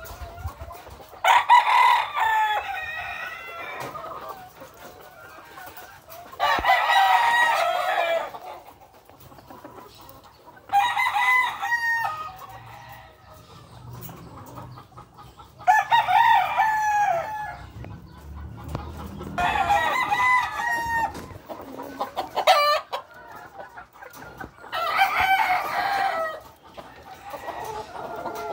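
Gamecock roosters crowing one after another: six loud crows about four to five seconds apart, each lasting about a second and a half, with quieter calls and a couple of sharp knocks in between.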